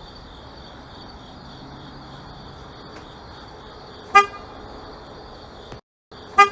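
Two short, loud, horn-like toots, one about four seconds in and another just before the end, over a steady background hiss. There is a brief cut-out between them.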